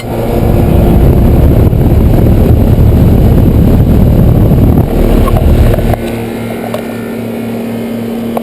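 Central air conditioner's outdoor condenser running just after a new capacitor was fitted: the compressor hums and the condenser fan runs. It is loud and rough for about the first six seconds, then settles to a steady hum with a low pulsing.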